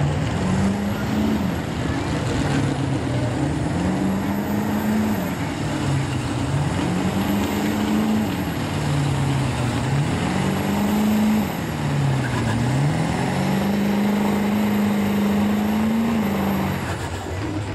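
A street-class diesel pickup's engine running hard, with a high turbo whistle that follows the revs. The revs rise and fall about five times, then hold high for a few seconds before dropping off near the end.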